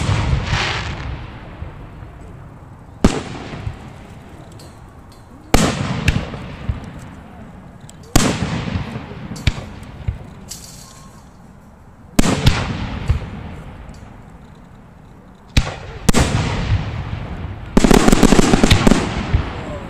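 Aerial firework shells bursting at close range: about eight sharp bangs, two to four seconds apart, each followed by an echo that fades over a second or two. Near the end comes a dense crackling burst lasting about a second and a half.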